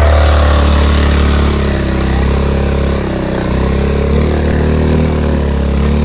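Honda Forza 350 scooter's single-cylinder four-stroke engine running steadily at speed, with a slight dip in level about three seconds in.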